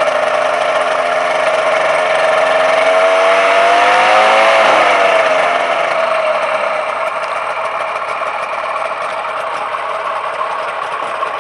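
Rotax 582 two-stroke twin aircraft engine revving up smoothly for about four seconds, to about the 2400 rpm at which its centrifugal clutch engages the propeller, then easing back down to a steady idle.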